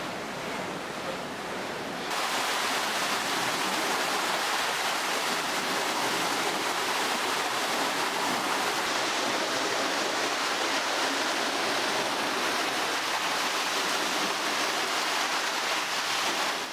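Steady rush of flowing water, stepping up louder about two seconds in.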